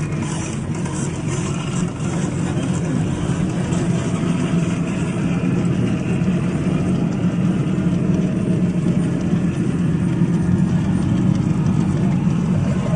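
A vehicle's engine running steadily at an even, low pitch, with no revving.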